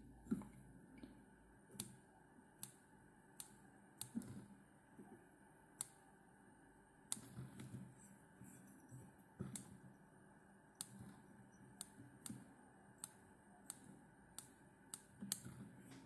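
Small fly-tying scissors snipping chamois fur off a caddis fly's body: a string of faint, sharp snips at irregular spacing, about one every second.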